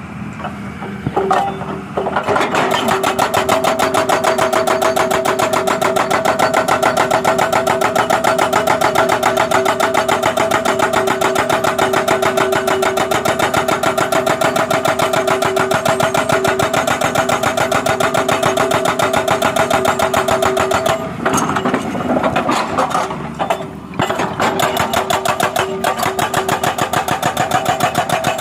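Excavator-mounted hydraulic breaker hammering road pavement in a fast, even rapid-fire pounding over the excavator's running engine. It starts about two seconds in, stops briefly about three quarters of the way through, then starts again.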